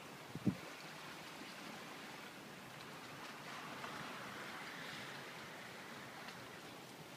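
Steady hiss of surf washing on the shore, swelling slightly near the middle, with one short low thump about half a second in.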